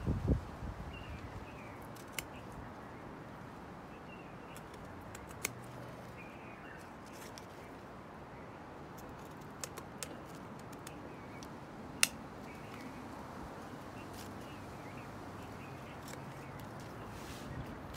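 Bonsai cutters snipping through kukui (candlenut) branches: a few sharp, separate snips, the loudest about twelve seconds in. Faint bird chirps sound in the background.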